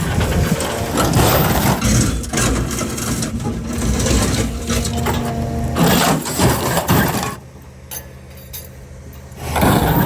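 A heavy machine's engine running under loud crunching and scraping. About seven seconds in the crunching stops for two seconds, leaving only a steady low engine hum, then starts again.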